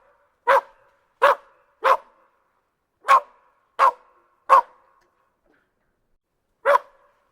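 Dog barking: two runs of three short, sharp barks, then a pause of about two seconds and another bark near the end.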